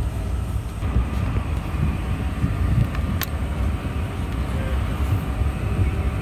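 Steady low rumble of cabin noise inside a Boeing 717-200, its engines running, with one light click about three seconds in.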